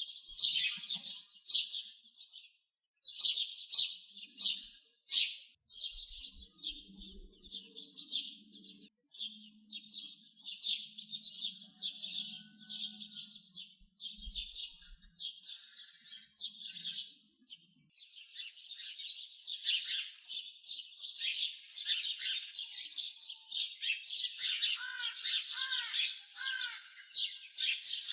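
Many small birds chirping in a dense, continuous chatter of quick high notes, with a few lower, downward-sliding calls near the end.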